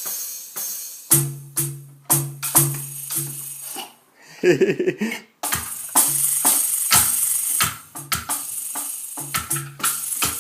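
Roland TD-9KX2 electronic drum kit played unevenly by a child: a run of tom hits at about two a second, then a busier jumble of drum and cymbal sounds from the sound module.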